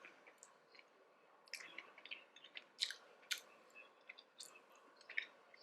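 Faint, irregular mouth clicks and smacks of a person chewing a mouthful of sushi roll with crispy fried chicken and avocado.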